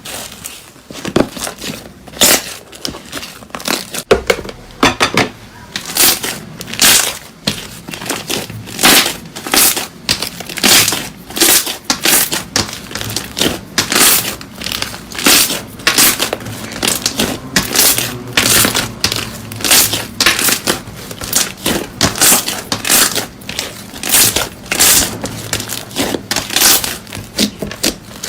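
Slime being squeezed and pressed by hand in a run of short, crisp squishes, about one or two a second with no pause.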